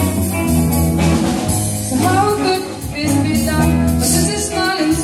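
Background music: a song with a singer over steady bass and drums, the voice coming in about two seconds in.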